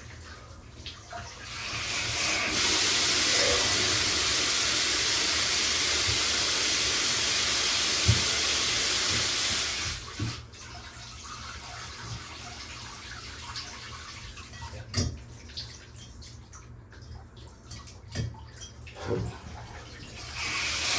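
Water gushing from a bathtub faucet as the newly repaired tub/shower mixing valve is turned on, running steadily for about eight seconds and then shut off abruptly. A few knocks follow, and the water is turned on again near the end.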